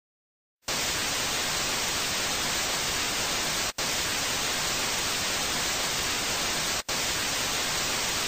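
Television static: after a moment of silence, a steady hiss of white noise starts abruptly and runs on, cut by two very brief dropouts about three seconds apart.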